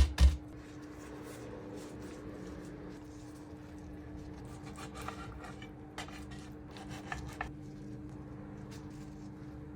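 Kitchen food-preparation sounds: a couple of sharp knocks right at the start, then scattered light clicks and scrapes of utensils over a steady hum.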